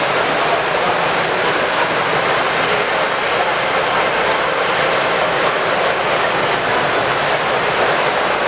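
Steady, even rushing noise with no distinct events, typical of the background din of a large, busy exhibition hall.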